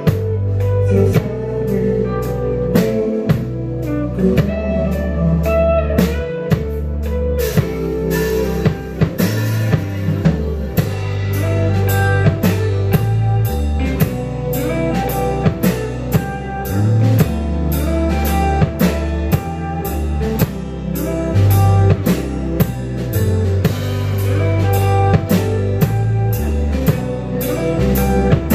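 Live rock band playing: two electric guitars, bass guitar and drum kit, with steady drum hits over a moving bass line.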